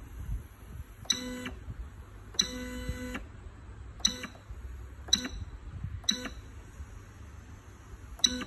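Short tonal beeps from a DIY battery spot welder's control board and stepper motor as the electrode head is stepped down by button presses. There are about seven beeps, with one held longer a little over two seconds in, over a steady low hum.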